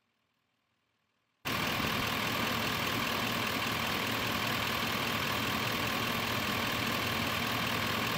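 Duramax turbodiesel V8 idling steadily while the transmission fluid level is checked at temperature. It starts abruptly about a second and a half in.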